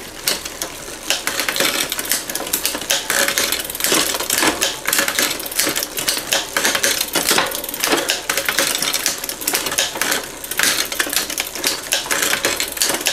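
Bicycle drivetrain of a 3x8 hybrid in a repair stand, clicking and ticking rapidly and unevenly as the cranks are turned by hand and the rear trigger shifter is worked through the gears. The shifter has just been freed from gummed-up grease.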